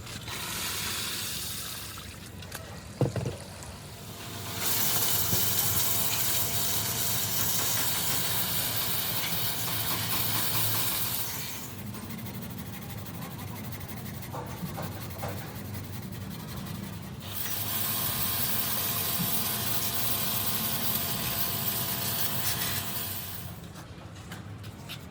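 A pressurised jet hissing in three long bursts of several seconds each, with a faint steady hum running underneath.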